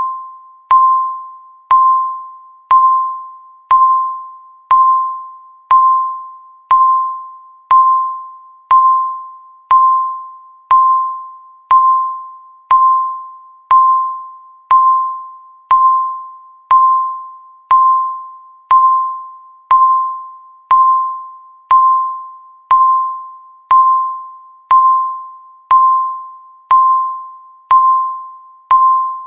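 Countdown timer beeping once a second: about thirty identical single-pitched electronic dings, each struck sharply and fading before the next, one for every second ticking off.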